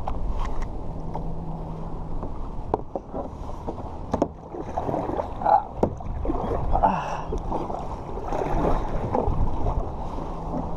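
A plastic sit-on-top kayak being paddled: water sloshing and splashing around the paddle blades and hull, with a few sharp knocks.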